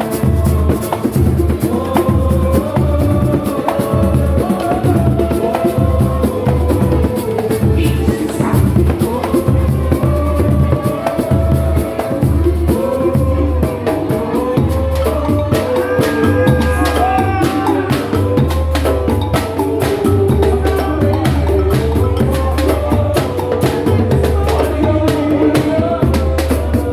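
Samba-pagode band playing: dense hand percussion over a pulsing bass beat, with singing on top.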